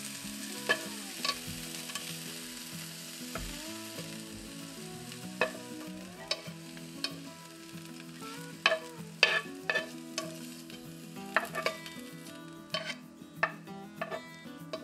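Freshly stir-fried vegetables sizzling in a hot frying pan while they are scraped out onto a plate of noodles, with repeated sharp clicks and taps of a utensil against the pan and plate. The sizzle fades over the first few seconds and the clicks come thicker in the second half.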